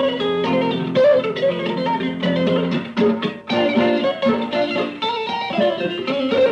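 Blues guitar playing in an improvised country-blues jam: picked melodic notes over held low notes.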